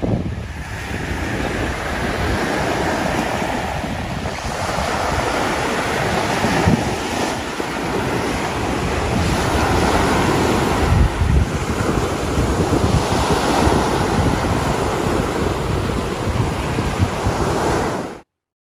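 Waves of a calm sea washing onto a sandy beach, swelling and easing every few seconds, with wind buffeting the microphone. The sound cuts off abruptly near the end.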